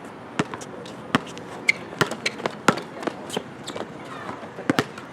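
Basketball bouncing on a hard court: a run of sharp, irregularly spaced bounces.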